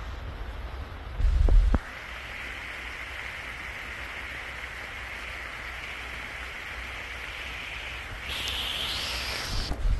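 Heavy mountain rain pouring steadily onto dense forest leaves, heard as an even hiss. A brief, loud low rumble comes about a second and a half in. Near the end the rain hiss grows brighter and louder.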